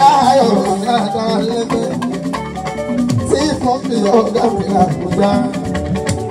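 Live Fuji band music: a man's voice singing into a microphone over electric guitars, keyboard and rattling shaker percussion.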